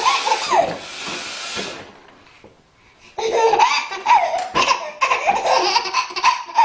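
Baby laughing hard in belly laughs. The laughter breaks off and falls quiet for about a second near the middle, then starts again suddenly and loudly.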